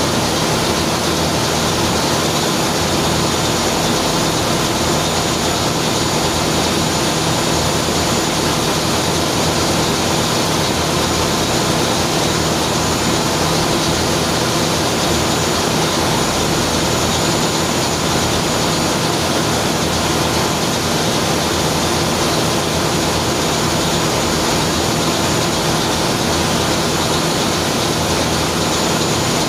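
Large multi-cylinder marine diesel engine running steadily in a ship's engine room: a loud, even drone with a strong hiss.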